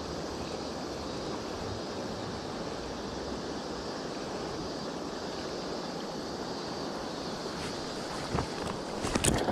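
River water rushing steadily around a wading angler in a fast ayu-fishing current, with a few brief sharper sounds near the end.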